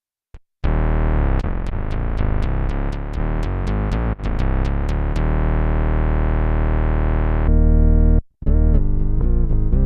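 Electric bass played through a Dunlop MXR MB301 Bass Synth pedal, giving thick synth-bass tones: a run of quickly picked notes, each with a sharp attack, settling into held notes. After a short break near the end, a different synth patch starts with fast notes that wobble in pitch and tone.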